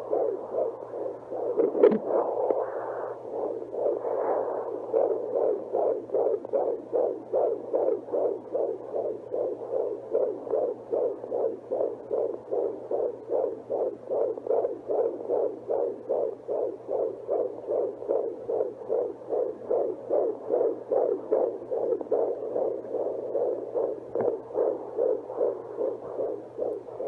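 Handheld fetal doppler (Little Martin's Baby Sound Amplifier) playing a baby's heartbeat through its speaker: a fast, even pulsing whoosh at about two and a half beats a second, roughly 150 a minute, a fetal heart rate rather than the mother's, over a steady low hum. A louder irregular scuffing sound comes in the first few seconds.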